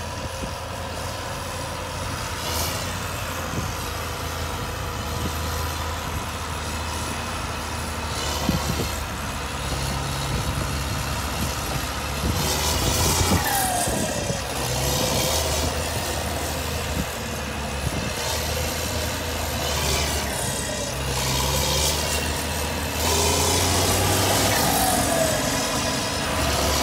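New Holland TM190 tractor's six-cylinder turbo diesel running as it drives along under way. The engine note steps up and down with a high turbo whine rising and falling over it, and it grows louder in two steps as the tractor draws near.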